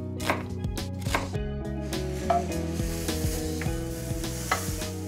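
A few knife chops through onion on a cutting board, then pork strips sizzling in a hot frying pan as they are stirred with a wooden utensil.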